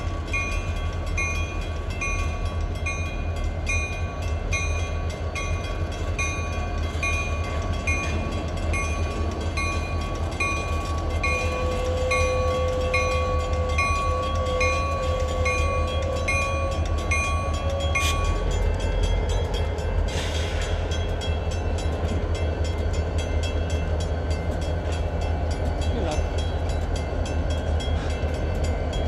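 Diesel freight locomotives running slowly past a grade crossing, their engines a steady low drone. The crossing signal's bell dings about twice a second and stops about two-thirds of the way through, followed by a short hiss.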